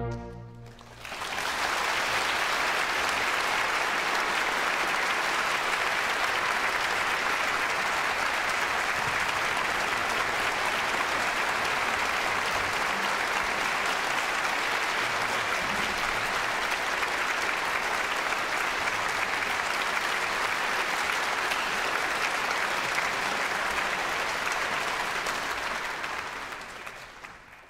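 A large concert-hall audience applauding steadily, the clapping swelling in about a second in and fading out near the end.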